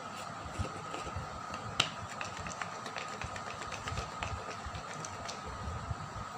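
Small plastic jar with a red screw lid being capped and handled, giving scattered light clicks and taps, with one sharper click about two seconds in. A faint steady hum runs underneath.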